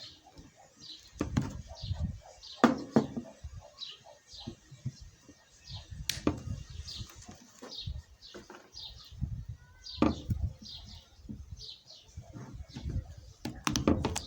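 A small bird chirping over and over in short falling notes, with irregular knocks and clanks of tools and metal parts as a car steering rack is taken apart. The loudest knocks fall near 3, 6 and 10 seconds in, with a quick cluster near the end.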